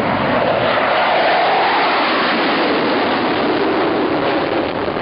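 Jet aircraft passing overhead: a loud, steady rush of engine noise whose pitch slides slowly downward.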